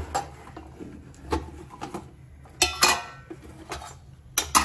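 Metal kitchen utensils and dishes clinking and knocking around the stove: scattered single strikes about once a second, with a quick cluster a little past halfway where one rings briefly.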